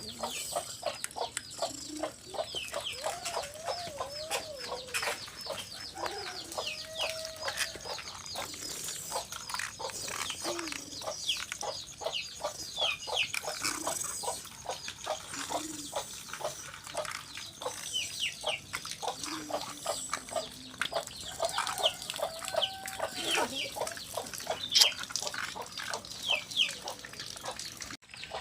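Chickens clucking, with many quick high chirps throughout.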